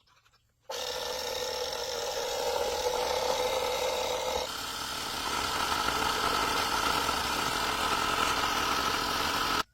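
A motor running steadily, starting and stopping abruptly, its pitch stepping up about halfway through.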